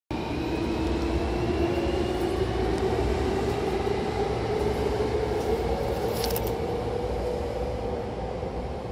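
Hankyu Takarazuka Line train pulling away from the station, heard inside the car: the traction motor whine rises slowly in pitch as the train accelerates, over a steady low rumble from the running gear. There is a brief high click about six seconds in.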